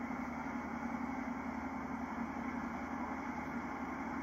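Sportfishing boat's inboard engine running with a steady, even hum.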